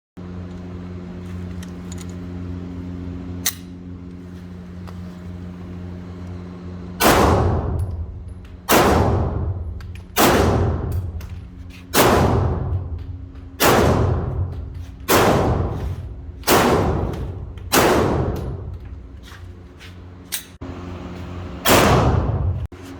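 9mm Glock pistol fired nine times in single shots about a second and a half apart, starting some seven seconds in, each shot echoing. Before the shooting, a steady low hum and one sharp click.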